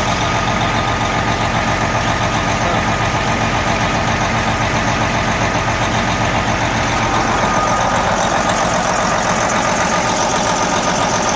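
Scania V8 diesel engine with a mechanical injection pump idling steadily, freshly started after an engine rework with oil pressure up.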